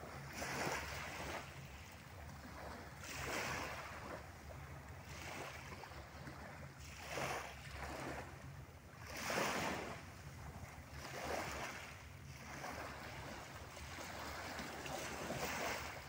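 Small sea waves lapping and washing up the shore, a swell of hiss every two seconds or so, over a steady low hum.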